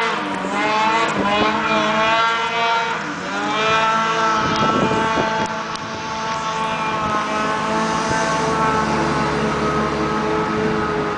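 Ski-Doo 800 snowmobile's two-stroke engine running at high revs as the sled skims across open lake water. Its pitch dips and recovers twice in the first few seconds, then holds steady and grows slightly quieter as it moves away.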